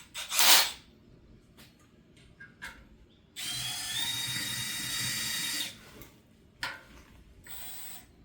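Power drill with a small bit drilling out a rivet in a metal bracket. A short loud burst comes about half a second in, then the drill runs steadily for about two seconds with a whine that rises slightly in pitch, followed by a couple of brief bursts near the end.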